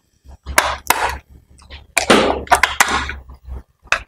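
Batteries being pushed into the plastic battery compartment of a toy music box: an irregular run of sharp clicks and knocks as they snap against the spring contacts and the plastic is handled.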